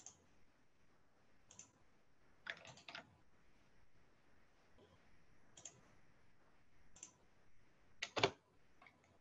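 Faint, scattered clicks of a computer mouse and keyboard, a second or more apart, with the loudest a close pair about eight seconds in.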